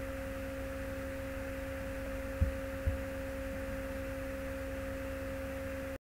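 Steady electrical hum and hiss from the recording setup, with two constant tones, one low and one higher. Two low thumps come about two and a half and three seconds in, and the sound cuts off abruptly to silence near the end.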